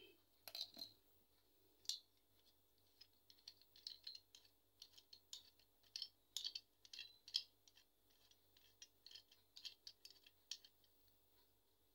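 Light, irregular clicks and rattles of a metal motorcycle phone holder being handled, with its clamp's adjusting knob being turned by hand.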